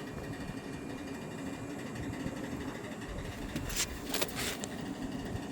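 Diesel-type engine of heavy equipment running steadily at a low hum, with a few short hisses about four seconds in.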